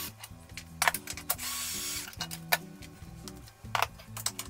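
Cordless drill-driver running in one short burst about a second and a half in, spinning out a 13 mm bolt from the underside engine bash plate, with several sharp clicks and knocks around it. A low background melody plays throughout.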